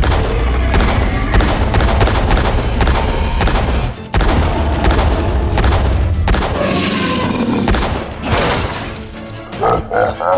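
Sound effects of rapid gunfire-like bangs and heavy booms over a deep rumble, laid over background music, with short breaks about four and eight seconds in.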